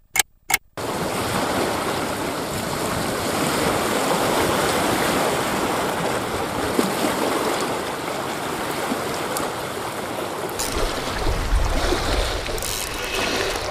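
A few evenly spaced clock ticks right at the start, then the steady wash of wind-driven waves breaking on a rocky lake shore. From about ten seconds in, wind buffets the microphone.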